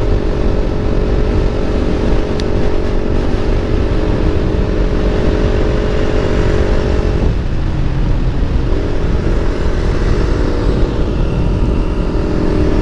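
Motorcycle with an Akrapovic aftermarket exhaust running at a steady speed, with wind blast on the microphone. About seven seconds in, the exhaust note drops away for a second or so, then comes back and climbs slightly.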